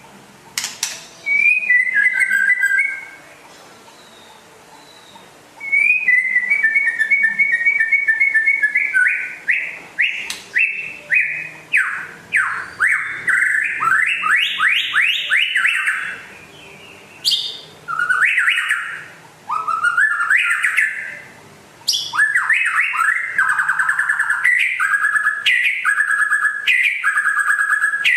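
White-rumped shama (murai batu) singing a string of varied loud phrases: rapid repeated notes, quick runs of falling whistles and a fast pulsing trill near the end, with short pauses between phrases.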